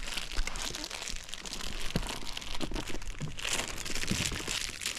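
Plastic snack packaging crinkling and rustling in uneven bursts, with small crackles and taps, as someone rummages for food.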